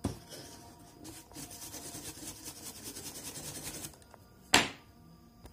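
Handling noise from hands working a small circuit board: a click, then a couple of seconds of rapid scratching and rubbing, then one sharp knock near the end.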